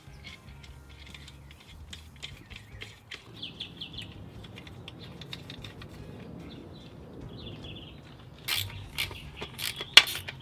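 Hand socket ratchet clicking in quick bursts as bolts are driven up under a motorcycle's rear fender. Faint handling clicks come first, and the ratchet clicks grow loud about eight and a half seconds in.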